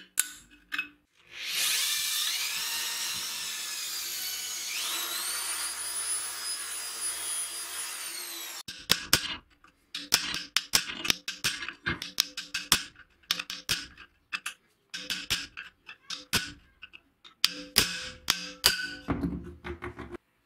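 A small power tool whines for about seven seconds, speeding up in two steps before cutting off suddenly. Then a metal pick scrapes and picks rust and caked grime out of holes and corners of a rusty steel frame: a long run of sharp scratches and clicks.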